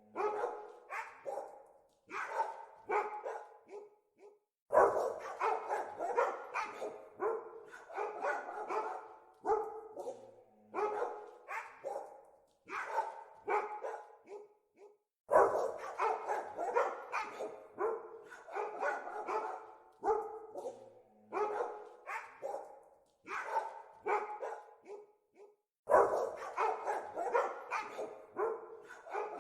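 Dogs barking repeatedly. The barks come in dense flurries of rapid barking about every ten seconds, with sparser single barks between.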